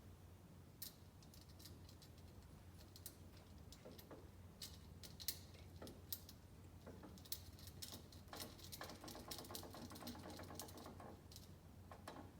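Faint scattered clicks and light taps of small metal parts and a screwdriver being handled while a screw carrying a ground lead is fitted, with a stretch of rapid fine ticking near the end.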